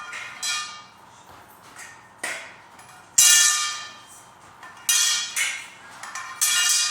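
Day bed frame parts knocking and clanking together while being taken apart: about seven sharp, ringing metallic hits at uneven intervals, the loudest about three seconds in.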